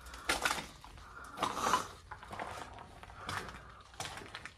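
Footsteps at a slow walk, about one step a second, each a short scrape.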